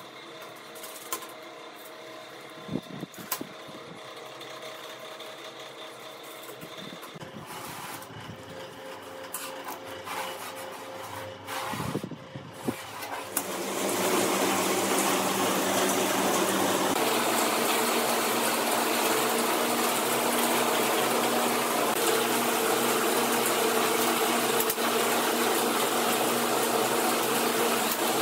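Light metallic clinks and clicks as a bolted flat-steel scissor linkage is folded and stretched on a steel workbench. About halfway through, a loud, steady machine noise with a low hum sets in and keeps going, drowning the handling.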